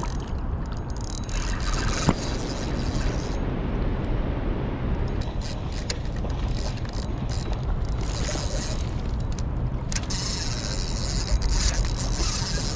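Steady rush of river rapids with wind rumbling on the microphone, broken by scattered sharp clicks and one louder knock about two seconds in.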